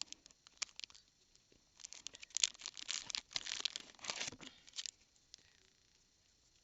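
Plastic booster-pack wrappers crinkling and rustling as a handful of packs is handled and sorted, with a few light clicks at first and a dense patch of crackling about two to five seconds in.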